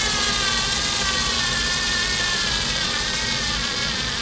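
Cordless screwdriver's small electric motor running without a break as it drives a screw into wood, its whine slowly falling in pitch and level as it bogs down under load. It is running on nickel-cadmium cells charged only from a coin cell, and it is short of torque.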